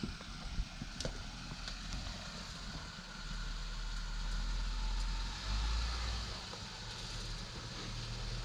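Off-road 4x4's engine rumbling low as it crawls over rocks, swelling a few seconds in, with a couple of sharp clicks near the start.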